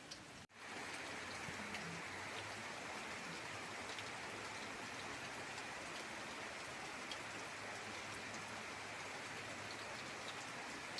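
Heavy rain falling steadily, with scattered individual drop ticks. The sound cuts out briefly about half a second in, then comes back slightly louder and fuller.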